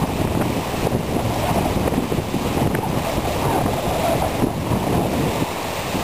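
Strong wind buffeting the microphone with a loud, uneven rumble, over the wash of choppy river waves lapping at the shore.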